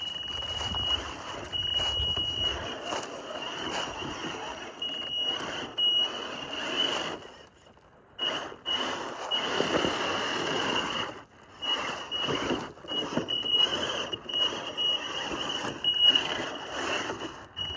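Traxxas TRX4 Sport RC crawler with a Castle brushless motor driving through a shallow water crossing: a high whine from the motor comes and goes with the throttle over splashing and tyre noise, stopping briefly about eight seconds in.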